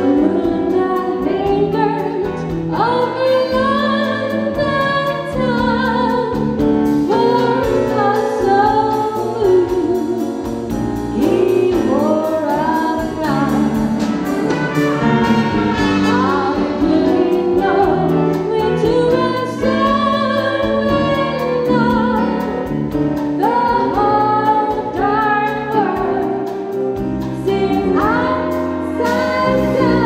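Woman singing a slow song through a microphone, with a live band and strings accompanying her: violins, cello, flute, brass, drums, guitar and keyboard.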